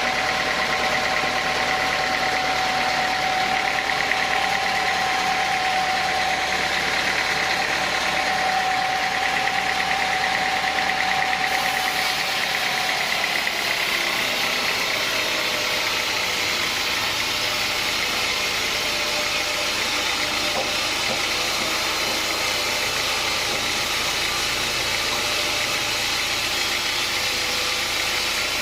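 Sawmill saw running through a teak log, a loud steady mechanical noise with a high whine; about halfway through the whine fades and the sound settles to a different, steadier pitch.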